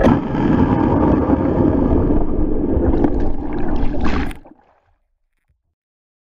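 Water heard through an underwater camera: a muffled low rumble and gurgling. About four seconds in there is a brief splash, then the sound fades quickly into silence.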